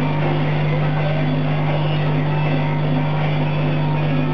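CO2 laser cutting machine running steadily while cutting acrylic: a constant low hum under an even rushing noise.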